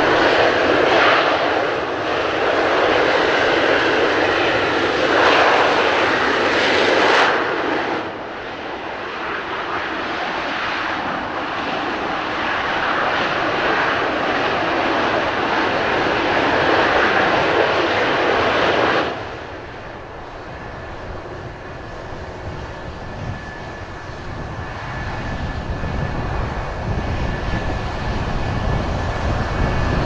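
Several F-4EJ Kai Phantom IIs' J79 turbojet engines roaring on the runway. The roar drops sharply about a quarter of the way in and again past the middle. After that a steady high whine carries on, and a low rumble builds toward the end.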